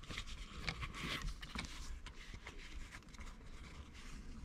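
Faint rustling and scraping of a leather gear-shift boot being handled, with a few small clicks, busiest in the first second or so.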